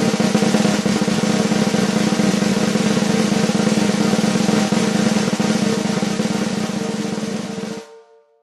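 Drum roll: a fast, continuous roll of even strokes that stops abruptly near the end, leaving a brief ring of the drum.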